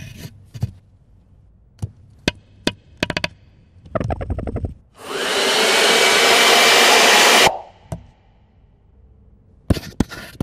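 Pencil and eraser working on paper: scattered light taps and a quick run of rubbing strokes. Midway comes a loud, steady rush with a whine that rises as it starts; it lasts about two and a half seconds and cuts off suddenly. A few more pencil ticks follow near the end.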